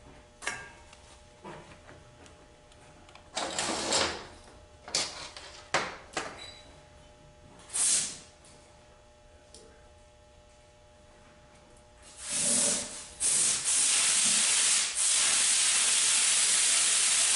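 A nozzle hisses with pressurised gas in a few short bursts. From about twelve seconds in it gives a long, steady, loud hiss that breaks off briefly once.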